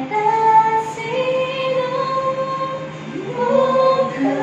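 A solo voice singing a slow melody in long held notes, with a brief breath between phrases about three seconds in.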